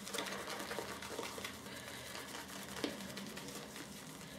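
Shaving brush whipping a thick, creamy shaving-soap lather in a bowl: a steady wet stirring with many small clicks, and a sharper click about three seconds in.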